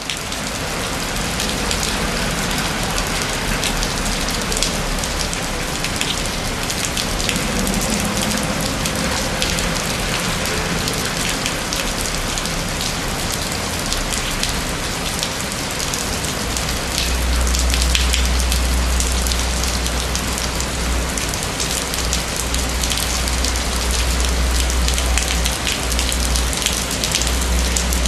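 Steady rain falling and pattering on stone, with many small drop impacts. A deep rumble joins about halfway through and carries on to the end.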